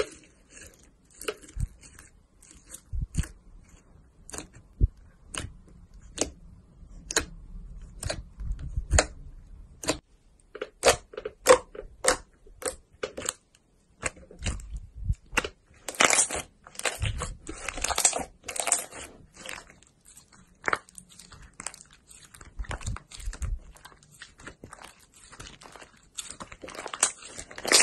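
Hand-played slime clicking and popping as fingers poke, fold and squeeze it. The pops come irregularly and turn into a thicker crackling for a few seconds about halfway through.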